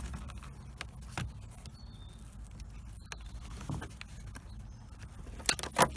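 Scattered light clicks and knocks of a small wiring plug and plastic dashboard trim being handled, with two sharp clicks close together near the end.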